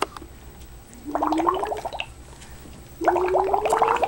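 A toddler humming through the straw of her cup and blowing bubbles into the milk: two gurgling hums about a second long, each rising a little in pitch and broken into a rapid bubbling flutter.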